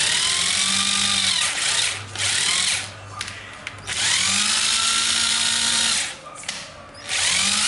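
National EZ7206 cordless impact driver running free with no screw, trigger squeezed several times. Each run starts with a rising motor whine, holds steady for a second or two, and winds down in the short pauses between pulls.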